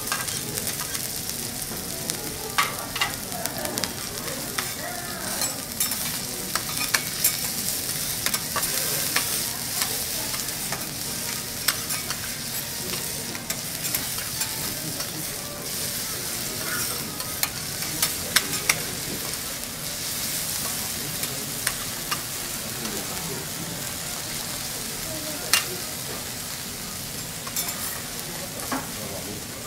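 Diced A5 Wagyu beef trimmings frying on a hot steel teppanyaki griddle, a steady sizzle, with metal spatulas clicking and scraping against the plate every so often as the meat is stirred.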